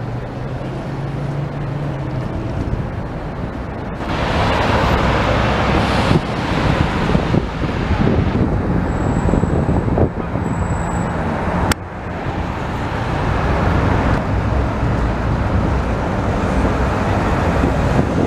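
City street traffic with trams and cars running past, in stretches that change abruptly about four seconds in and again, with a sharp click, about twelve seconds in. At the end a Siemens ULF low-floor tram is passing.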